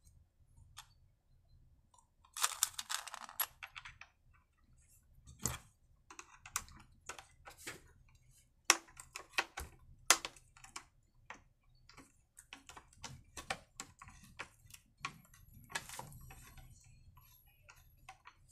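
Screwdriver work on an Oleo-Mac 937 chainsaw's plastic housing: irregular clicks and knocks of metal on plastic as a screw is turned into the anti-vibration damper, with a short scraping rustle about two seconds in. The damper is not clamping and spins with the screw.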